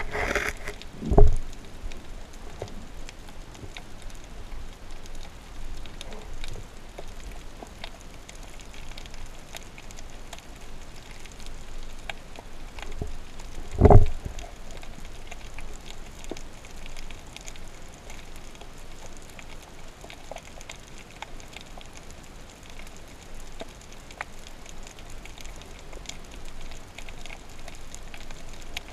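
Underwater ambience picked up through a camera housing: a steady fizzing crackle, with a dull low thump about a second in and another, louder one about halfway through.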